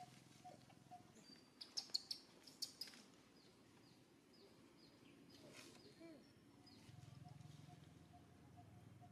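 Faint outdoor ambience: a small bird chirping repeatedly in short, high, falling notes, with a few sharp clicks and rustles near the start.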